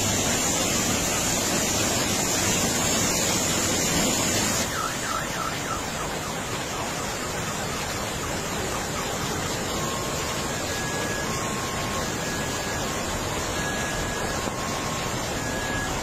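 A car alarm sounds faintly over a steady rushing noise. The alarm gives sweeping whoops about five seconds in, then from about ten seconds in switches between a high and a low tone about once a second. The rushing noise drops a little about four and a half seconds in.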